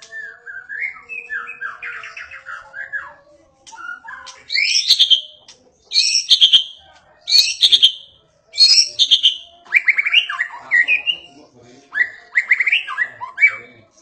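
Caged white-rumped shama (murai batu) in full, vigorous song: a varied series of whistled and chattering phrases. Softer warbles come first, then loud, high phrases repeated about once every second or so through the middle, then lower phrases near the end.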